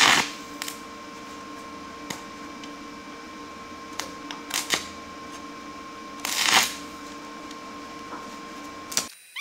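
Stick-welding arc crackling in a few short bursts as the 3/32 in. 7018 electrode is struck against the steel, with a steady hum between the bursts. The arc does not hold: the old, floppy rod keeps sticking.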